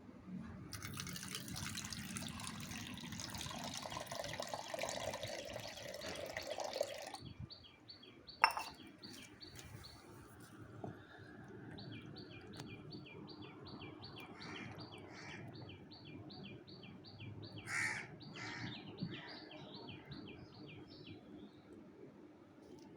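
Water running for about six seconds, then cut off. After that a bird calls in a long run of short high chirps, about two a second, with one sharp knock partway through.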